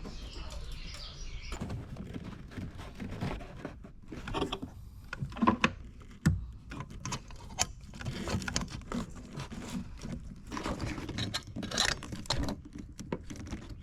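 Hand work on heater hoses and spring hose clamps: irregular metal clicks, taps and scraping as the clamps are worked with vise grips and the hoses wiggled on and off the connector.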